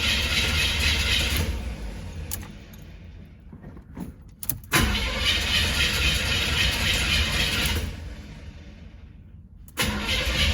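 Starter cranking a carbureted Chevrolet Monte Carlo engine in three bursts with pauses between, and the engine does not catch. It is a no-start that the owner puts down to the cold, and he plans to set the ignition timing at top dead center to fix it.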